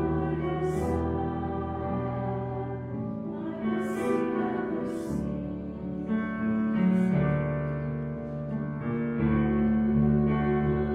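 Church hymn music: keyboard playing held chords under a slow melody, with voices singing.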